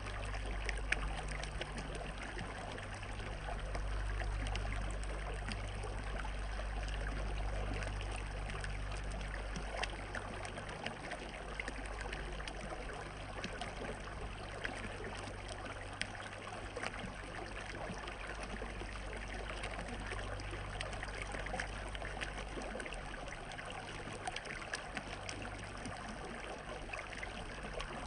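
Water running and trickling steadily, with many small splashes. A low rumble underneath comes and goes and eases off near the end.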